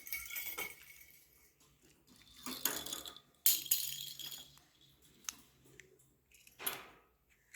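Metallic jingling and rattling in several short bursts, the loudest starting about three and a half seconds in.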